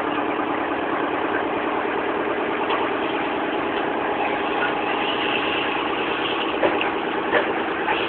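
Boat engine running steadily at an even pitch, with two brief knocks near the end.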